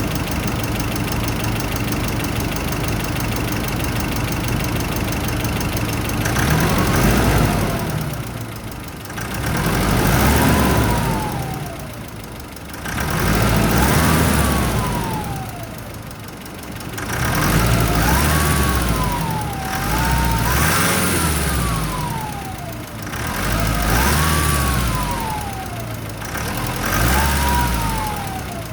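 Nissan Pathfinder R51 engine idling, then revved up and let fall back several times from about six seconds in. Each rev brings a turbocharger whine that rises in pitch with the revs and slides back down as they drop.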